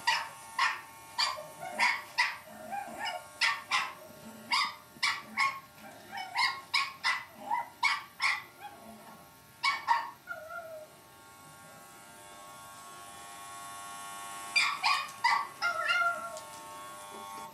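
Cavalier King Charles spaniel puppy yapping in short, high barks, about one or two a second, at an electric shaver that hums steadily beneath. The barking stops for about four seconds past the middle, then a short flurry of barks comes near the end.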